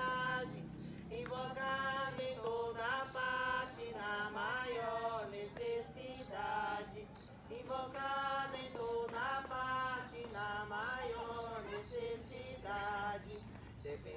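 A group of voices singing a Portuguese hymn to Saint Anthony in sustained, melodic phrases.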